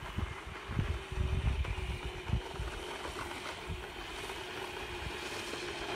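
Wind rumbling in gusts on the microphone for the first couple of seconds, over a faint steady hum and rolling noise from a small low-slung ride-on vehicle moving along the asphalt.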